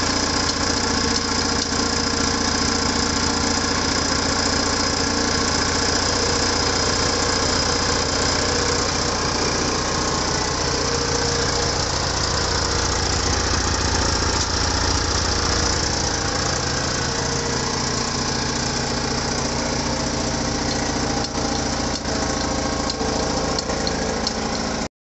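Suzuki Birdie 50 moped's small single-cylinder engine idling steadily.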